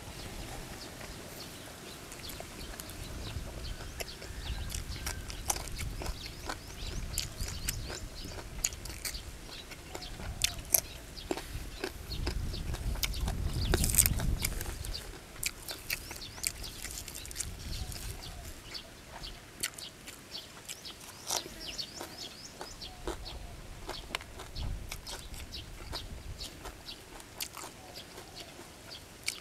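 A person chewing and crunching big mouthfuls of shrimp laab with fresh leafy vegetables, close to the microphone: many small wet clicks and crunches, louder about halfway through.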